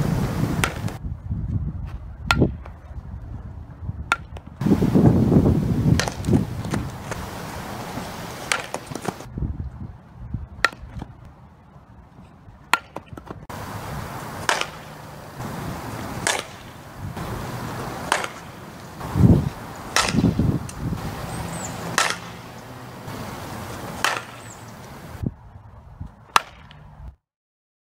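Softball bat striking tossed softballs, a sharp crack about every two seconds during bunting and full-swing batting practice, over wind noise on the microphone.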